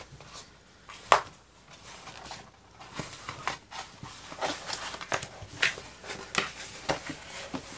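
The clear plastic protective film on a diamond painting canvas crinkling and crackling as hands press and smooth it flat. Irregular sharp crackles, the loudest about a second in.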